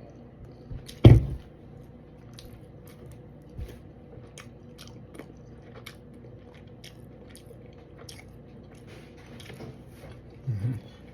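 Close-up eating sounds of a person chewing fish, with many small wet clicks of mouth and teeth. A single loud thump about a second in.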